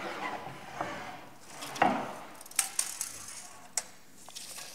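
Scattered light knocks and clinks as a walnut board and small tools are handled at the saw table, a few separate sharp taps about two to four seconds in.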